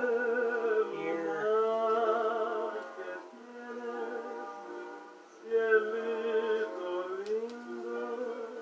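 Background music of slow, sustained, slightly wavering tones with no clear beat.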